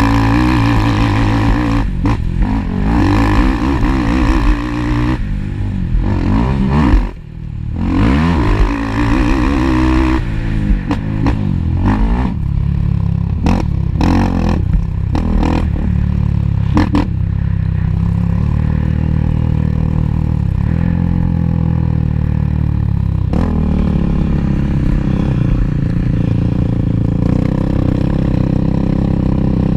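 Motocross ATV engines revving hard, rising and falling with the throttle. The throttle is shut sharply about seven seconds in, there is clatter midway, and the engine then runs at a steadier drone.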